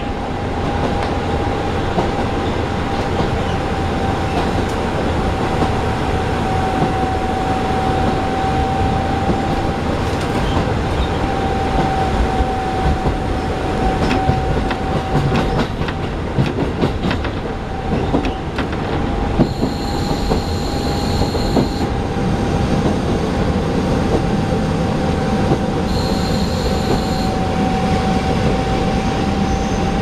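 Local train heard from inside the carriage while running: a steady rumble of wheels on rails with a continuous whine. Two short high-pitched tones sound about two-thirds of the way through.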